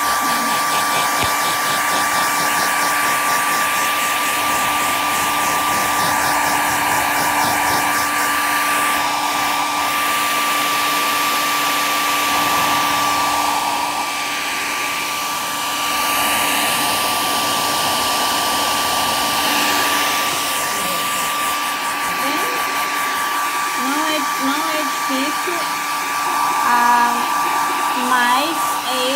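Hand-held hair dryer blowing steadily with a constant whine, drying freshly brushed chalk paint to speed up the crackle finish; the sound dips briefly about halfway through.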